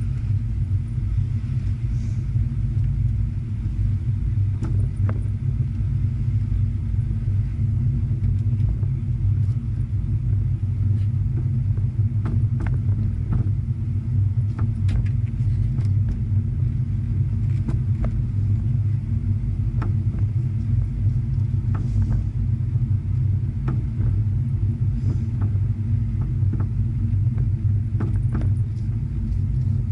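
Corvette V8 engine and road noise heard from inside the cabin: a steady low rumble as the car gathers speed gently, with a few faint clicks now and then.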